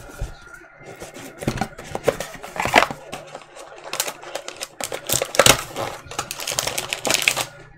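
A Panini Dominion basketball card box being handled and opened by hand: cardboard sliding, scraping and tapping, with a run of sharp clicks and knocks. The loudest knocks come about three seconds in and again a little past five seconds.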